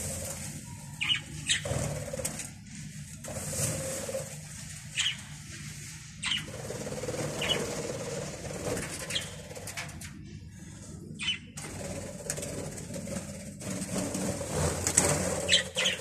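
Budgerigars chirping, a dozen or so short sharp calls scattered through, over fluttering of wings.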